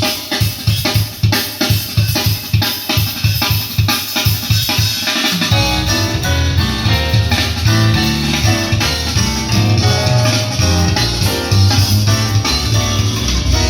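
Music with a steady drum beat and guitar, played loud through passive PA speakers for a sound test. A heavy bass line comes in about five seconds in.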